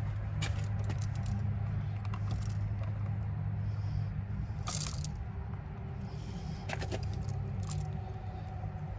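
Steady low hum with a few small metallic clicks and rattles of hand tools and wires being handled, the sharpest about halfway through.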